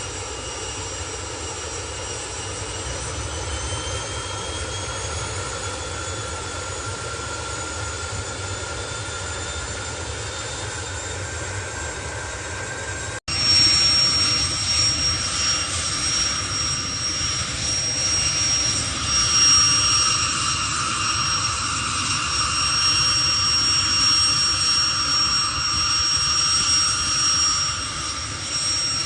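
Sikorsky S-64 SkyCrane helicopter's twin turboshaft engines whining, the pitch slowly rising over the first few seconds. About 13 seconds in there is an abrupt cut to a louder, steady high-pitched turbine whine.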